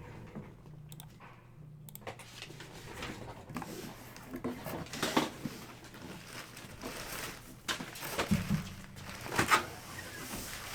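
Crinkling and rustling of trading-card packaging and cards being handled, in irregular bursts with a few sharper crackles.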